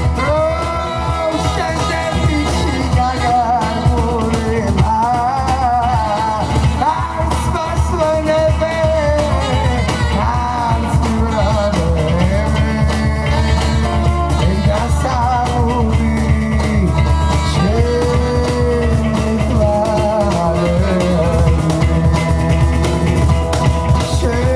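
A live band playing Georgian music: a melody, partly sung, over a steady low bass.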